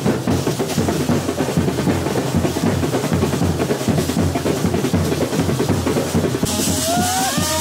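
Indian wedding band's drums, bass drum and snare drums, beating fast and dense. Near the end the sound changes suddenly: a bright hiss and a melody of sliding notes come in over the drumming.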